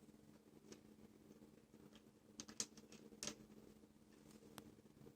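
Near silence with a low steady hum and a few faint, short clicks and taps, like small parts being handled.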